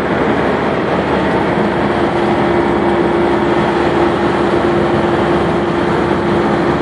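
Steady running noise of an engine or machinery nearby, with a steady hum coming in about a second and a half in.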